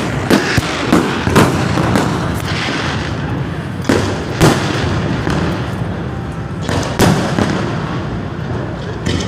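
Fireworks display: a string of firework shell bursts, several close together in the first two seconds and more around four and seven seconds in, over a continuous rumble and crackle.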